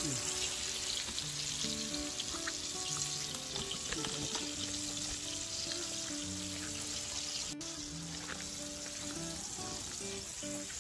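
Battered mackerel fillets frying in hot oil in a shallow pan: a steady sizzle with fine crackles.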